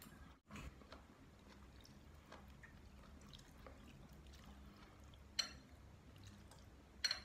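A person eating ramen noodles with faint mouth and chewing sounds and soft ticks, then two sharp clicks about five and seven seconds in.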